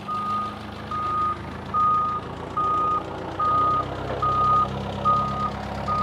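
Forklift backup alarm beeping in a steady single-tone rhythm, a little more than once a second, as the forklift reverses. Its engine runs underneath.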